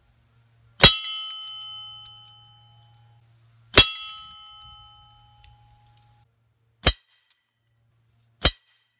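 Air rifle pellets striking a bell target hung on zip ties. The first two hits ring the bell, each ring fading over about two seconds. The last two, about a second and a half apart, are short clacks with no ring, typical of pellets hitting the target's faceplate rather than the bell.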